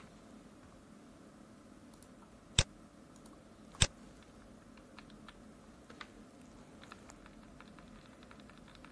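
Computer mouse clicking: two sharp clicks about a second apart, then a run of faint, light clicks.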